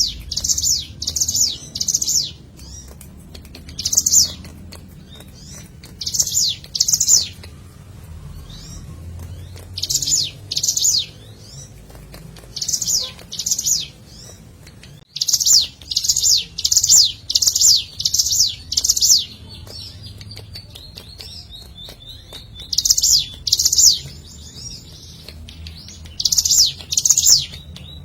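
Ciblek gunung (hill prinia) singing: loud, high, sharp chirping notes that sweep downward, given in quick runs of two to six with pauses of a few seconds between runs. The longest run comes about halfway through.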